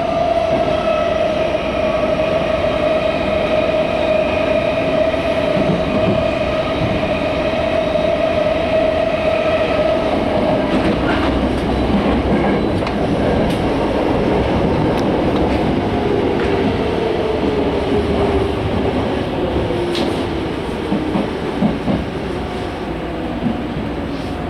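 Toyo Rapid 2000 series electric train heard from inside the car while running: wheel-on-rail rumble and clatter, with a steady motor whine that stops a little under halfway. In the second half a lower whine falls steadily in pitch.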